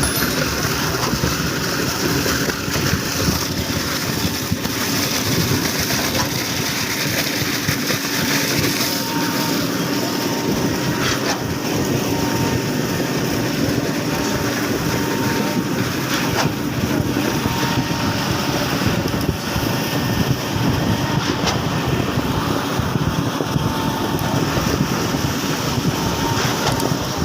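Truck-mounted 47-metre boom concrete pump running steadily while pumping concrete: heavy, continuous engine and machinery noise.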